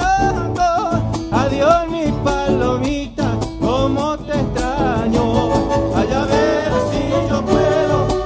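Argentine chaqueñada folk music from a band with guitar, violin and bombo drum: a wavering melody line over a steady strummed and drummed rhythm.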